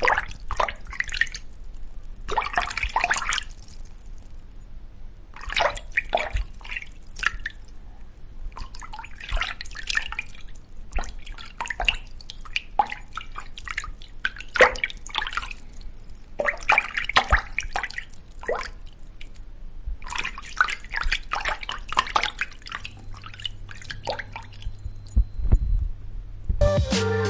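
Water dripping and splashing in irregular clusters of small splashes with short pauses between them.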